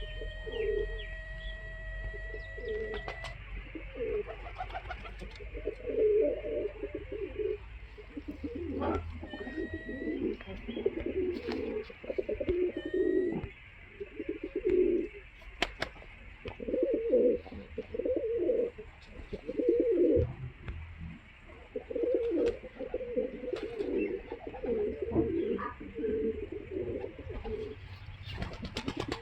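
Pigeons cooing in repeated bouts of low, rolling coos, with a few short high chirps from other birds.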